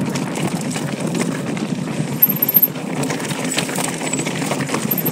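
Intense ACV mountain bike rolling over a dry, rough dirt trail: a steady rumble of tyres on dirt and stones with constant clicking and rattling from the bike, and a few sharper knocks about two seconds in.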